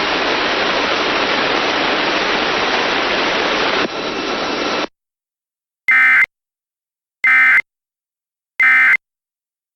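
A steady static hiss that cuts off suddenly about five seconds in, followed by the Emergency Alert System End of Message signal: three short identical bursts of SAME digital data warble near 2 kHz, about 1.3 s apart, marking the end of the alert.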